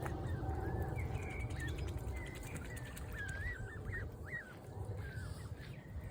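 Birds calling: a run of many short calls that rise and fall in pitch, over a steady low rumble.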